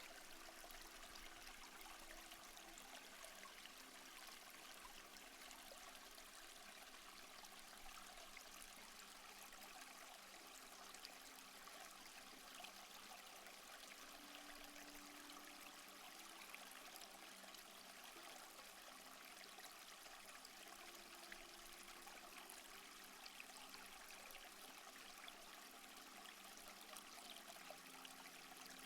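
Faint, steady rush of a trickling stream, a continuous watery hiss with no breaks.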